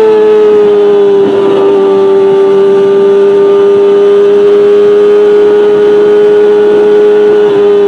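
Kawasaki Ninja ZX-25R's 250 cc inline-four engine, breathing through a Beet Nassert R Evolution exhaust with no catalytic converter, held at steady high revs. It gives a loud, high-pitched scream whose pitch drops a little at the start, then stays almost level, easing slightly near the end.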